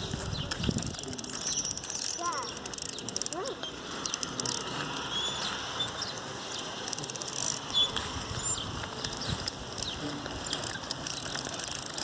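Bicycle freewheel ratcheting in runs of rapid clicks as the bike coasts.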